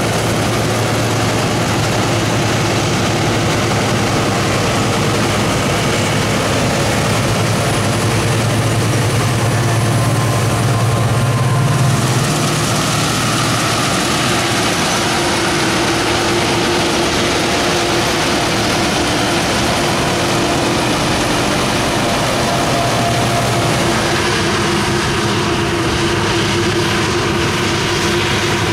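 Combine harvester's diesel engine and threshing machinery running steadily under load during a wheat harvest. The engine note rises slightly and grows louder just before twelve seconds in, then settles.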